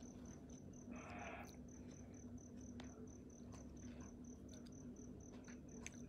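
Near silence: faint room tone with a steady, evenly pulsed high-pitched tone and a low hum, and a brief soft rustle about a second in.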